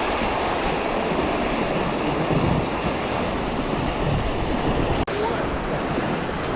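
Wind buffeting the microphone over water rushing along a racing sailboat's hull: a steady rushing noise that cuts out for an instant about five seconds in.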